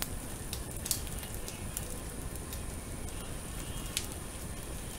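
Dashimaki tamago egg sizzling in a rectangular tamagoyaki pan over a gas flame. Long cooking chopsticks scrape and tap against the pan as the egg is folded, with two sharp clicks, one about a second in and one about four seconds in.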